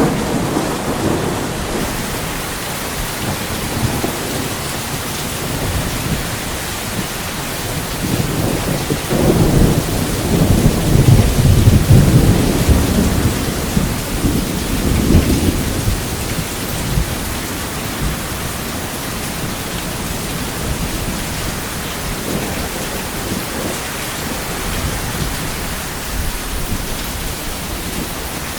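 Steady heavy rain with thunder rumbling. A long, low roll of thunder builds about a third of the way in and fades out near the middle.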